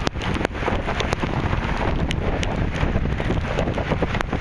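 Wind buffeting the microphone over steady rain, with a few sharp ticks scattered through it.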